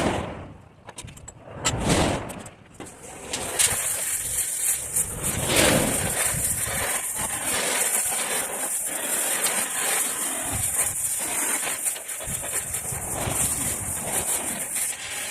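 A few metal knocks, then a cutting torch lit about three and a half seconds in, hissing steadily and loudly as it cuts steel.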